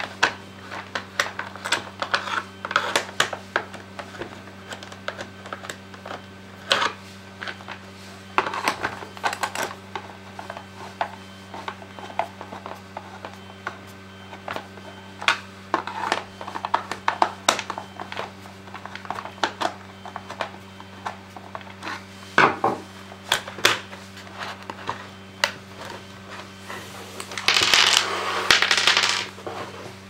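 A screwdriver and hands clicking, tapping and scraping on the plastic case of a Comfort Zone CZ442WM ceramic heater as it is pried open, with small sharp clinks throughout. Near the end comes a louder stretch of scraping and rattling as the shell comes apart, over a steady low hum.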